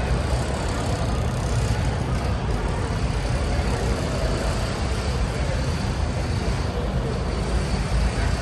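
Steady low rumbling din of a large convention hall, with faint, indistinct voices in the background.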